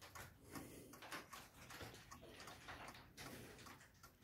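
Black Forest shelf cuckoo clock's movement ticking faintly and steadily, a few ticks a second, from its pendulum and outside escapement.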